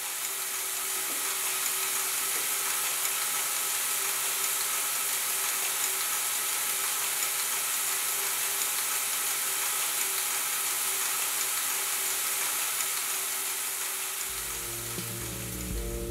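Experimental electronic noise: a steady hiss with a few faint held tones beneath it. About fourteen seconds in, low bass notes come in.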